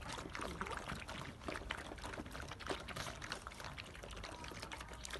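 A litter of puppies eating together from one bowl: a dense, irregular patter of many small lapping and chewing clicks.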